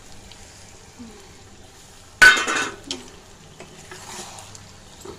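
A spatula stirring chilli chicken in a hot frying pan. About two seconds in there is a sudden loud burst of noise from the pan, with a ringing edge, which fades over about half a second.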